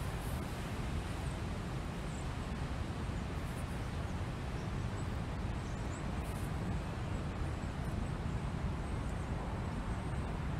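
Wind blowing across the microphone: a steady low rumble with a hiss above it, plus a few faint, short high chirps now and then.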